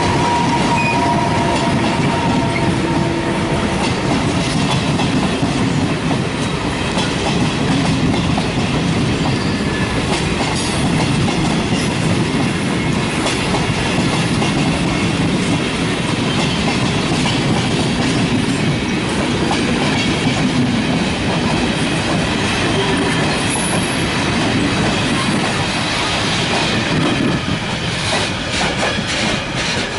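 Regional passenger train, hauled by a Trenitalia electric locomotive, rolling past on the near track: steady wheel and rail noise with clickety-clack over the joints. It drops away near the end as the last coach passes.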